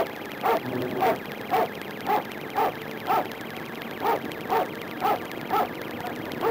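Police siren sounding in short, quick sweeps about twice a second, heard from inside the pursuing patrol car.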